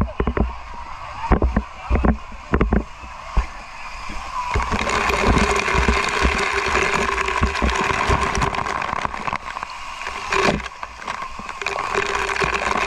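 Heavy water spray showering down into a shallow pool and onto the camera: a steady rushing hiss of falling water that sets in about four and a half seconds in. Before it come scattered low thumps, and there is a sharp knock near the end.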